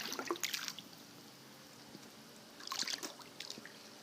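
Light splashing and trickling of water as a wound-up rubber-band toy boat's paddle churns the surface, in two short spells: one in the first second or so, another around three seconds in.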